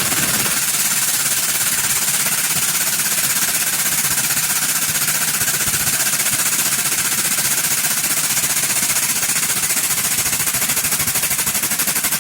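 Loud, steady run of a powered press pump with a fast, even pulsing, building pressure to squash a steel tube flat.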